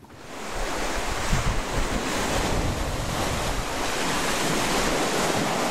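Sea surf breaking and washing over rocks, a steady roar with wind buffeting the microphone. It fades in over the first half second.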